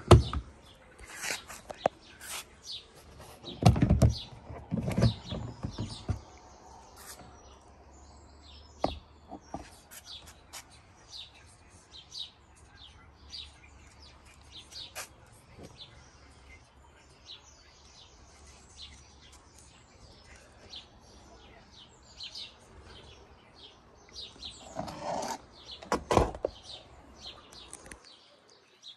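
Plastic box lid and latch being handled, with knocks and clatter in the first few seconds and again near the end, while small birds chirp repeatedly.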